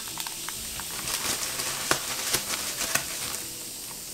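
Polystyrene foam packing peanuts dissolving in acetone in a glass bowl: a steady hiss with many scattered sharp clicks and crackles.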